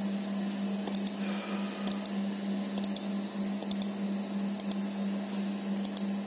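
Scattered clicks of a computer keyboard, roughly one a second, over a steady low hum.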